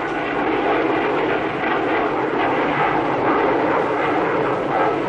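Jet engines of an F-4 Phantom fighter, its twin J79 turbojets, running with a steady loud rush that grows slightly louder.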